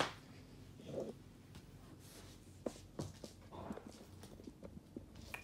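Soft knocks and rustling from a phone camera being handled and set down, with a sharp knock at the start and a couple of clicks about three seconds in.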